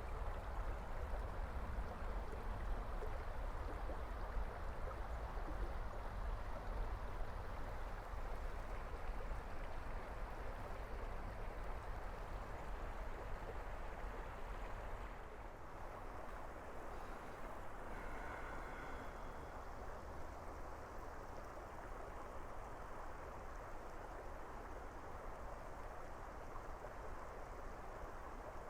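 Steady rush of flowing water from a creek, a little quieter from about halfway through.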